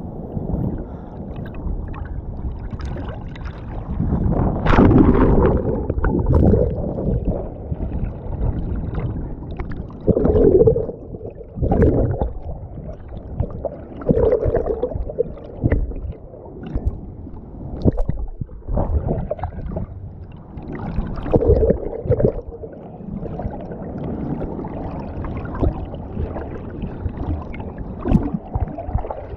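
Sea water sloshing and splashing against a camera housing held at the surface, muffled and gurgling as it dips in and out of the water, with irregular louder surges.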